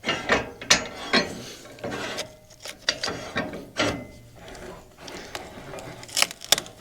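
Irregular metallic clicks, clanks and ratchet-like clicking as the Wood-Mizer LX50 sawmill's hardware is worked by hand.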